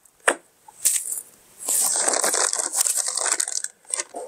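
Plastic packaging crinkling and rustling as parts are handled in a cardboard box, after a couple of short knocks in the first second.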